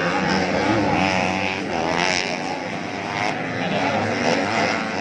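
Several motocross dirt bikes revving together on the track, their engine pitches rising and falling and overlapping.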